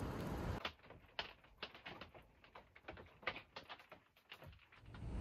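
Scattered raindrops tapping on a camper van's roof and window as a storm eases off: faint, irregular light ticks, about four a second. Before them a steady hiss cuts off after about half a second.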